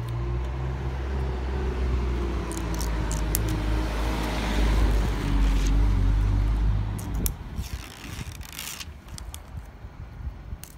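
A motor vehicle passes close by, its engine and road noise swelling to a peak about five seconds in and dying away about seven seconds in. Afterwards, light clicks and crackles.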